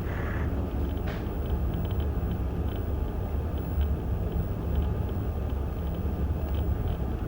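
Steady low rumble of background city traffic, with a common myna giving brief faint calls near the start and about a second in, and a few faint clicks.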